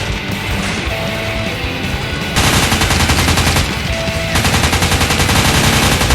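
Two bursts of rapid automatic gunfire, a dubbed-in machine-gun sound effect, over rock music. The first burst starts a little after two seconds in and lasts about a second. The second starts about four seconds in and keeps going.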